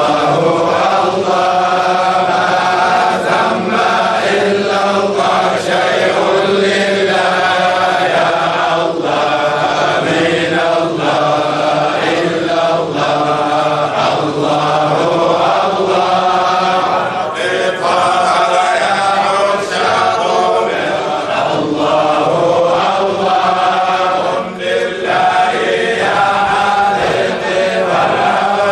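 A group of voices chanting together in a continuous religious chant, the melody moving on without pause.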